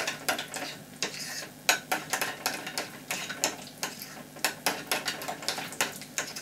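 Metal spoon stirring apricot jam and cinnamon in a small ceramic bowl, clinking and scraping against the bowl in quick, irregular strokes.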